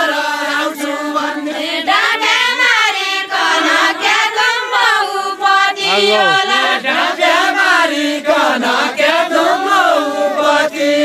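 A group of voices singing a Nepali deuda folk song together, unaccompanied, in a chanting unison.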